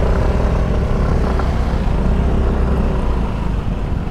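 Yamaha Mio Gear 125 scooter's engine running steadily while riding on rough trail, under a steady low rumble of wind and road noise.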